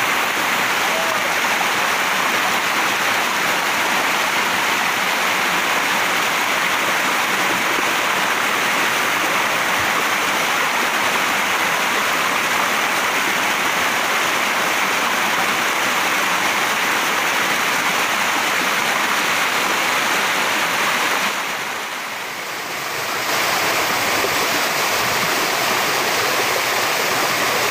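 Waterfall pouring over rocks: a steady, loud rush of falling water that briefly drops away and comes back about two-thirds of the way through.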